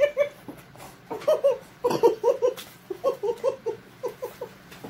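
Two women laughing hard in rapid bursts of short 'ha' syllables, with one short sharp hit about two seconds in.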